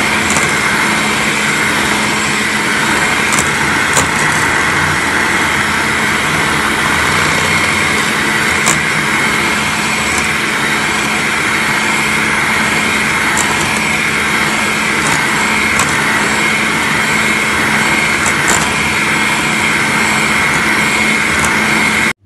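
Electric hand mixer running steadily, its beaters whisking eggs into a froth in a bowl, with a few faint clicks along the way. It cuts off abruptly near the end.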